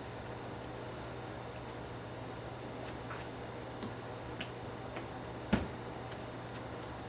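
Light scattered clicks and handling noises of hands working paper and a brush at a craft table, with one sharper knock about five and a half seconds in, over a steady low hum.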